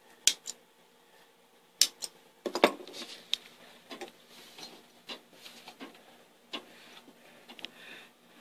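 Irregular light clicks and clacks, with a few sharper knocks, from an old Singer treadle sewing machine being handled and tried just after its drive belt has been tied on. There is no steady running rhythm.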